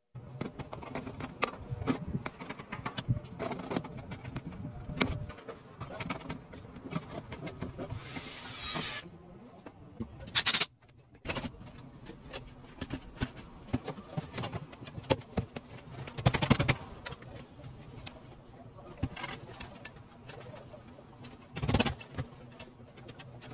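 Irregular knocks, taps and scrapes of copper gutter and downspout parts being handled and fitted, with a short hissing stretch about eight seconds in and heavier knocks near the middle and end.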